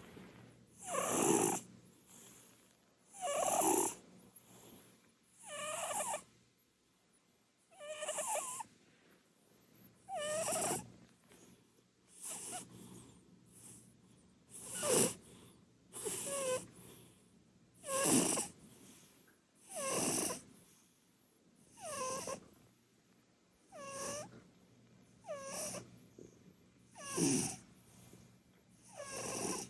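Munchkin cat snoring loudly in deep sleep, with a rasping snore on each breath about every two seconds.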